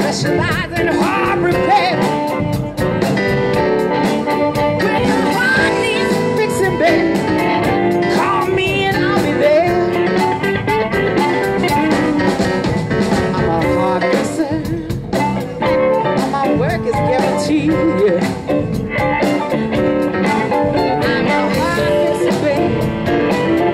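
Live blues band playing: electric guitar, bass, drums and keyboard, with a harmonica player on stage.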